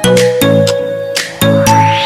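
Background music: an electronic track of short, sharply struck pitched notes, with a rising sweep building up near the end.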